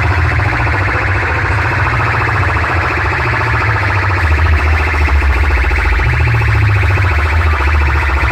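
Truck-mounted DJ loudspeaker stacks playing electronic music at very high volume: heavy, steady bass under a fast-pulsing electronic tone.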